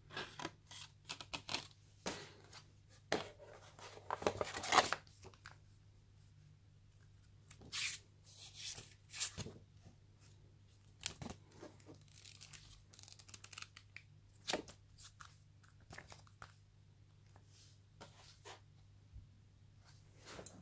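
Paper and card being handled: a CD sliding in its paper sleeve and the pages of a printed booklet being turned, a run of short rustles and scrapes, loudest about four to five seconds in.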